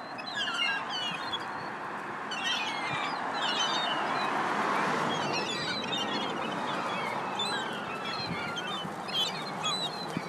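A flock of gulls calling, many short squawks overlapping without a break as they compete for bread, over a steady rushing background that swells around the middle.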